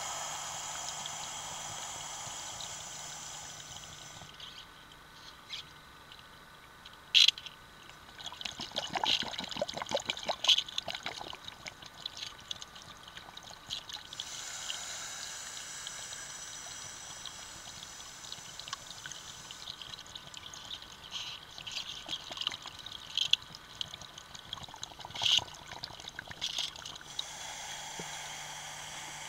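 Underwater scuba breathing: stretches of steady hiss alternating with bursts of crackling exhaust bubbles from the diver's regulator, with one sharp knock about seven seconds in.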